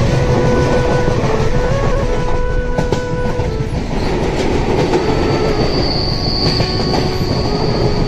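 Passenger train coach running along the track, a steady loud rumble of wheels and rails. About five seconds in, a thin high wheel squeal rises over it and holds for a couple of seconds.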